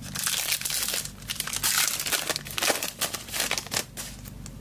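A trading card pack's foil wrapper being torn open and crinkled: a dense crackling rustle with many sharp crinkles, dying away near the end.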